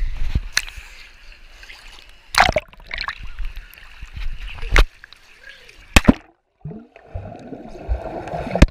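Pool water splashing and sloshing around a waterproof camera as it moves in and out of the water, with several sharp clicks and knocks. From about two-thirds of the way in the sound turns dull and muffled as the camera goes under water.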